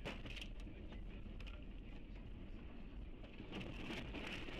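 Low steady rumble inside a moving car, with a few sharp clicks in the first second or so and a rustling hiss from about three and a half seconds in.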